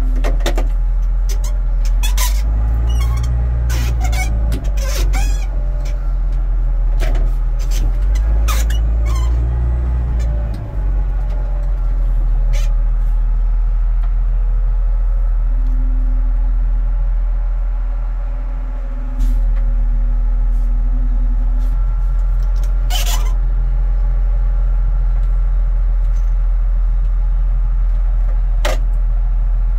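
Stinger Stacker 8500 self-propelled bale stacker's engine running, heard from inside the cab, with a flurry of clanks and rattles in the first third and two louder knocks later on. The engine's rumble shifts a little past the middle.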